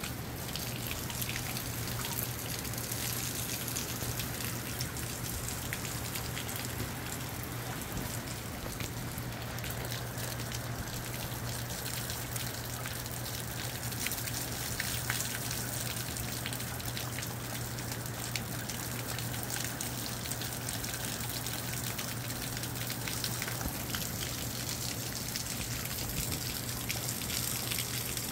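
Moderate rain falling steadily, with many separate drops striking close by and water running. A steady low hum sits underneath.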